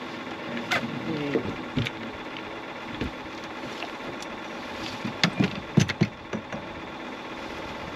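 Steady motor hum on a fishing boat, with scattered knocks and clunks of gear being handled on the aluminum hull, the loudest cluster about five to six seconds in.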